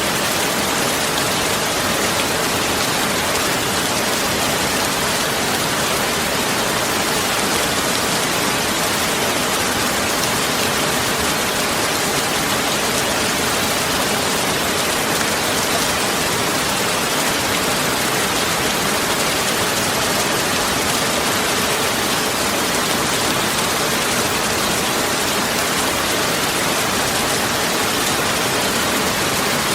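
Steady, even rushing noise with no pitch, rhythm or separate drops, of the rain-like kind.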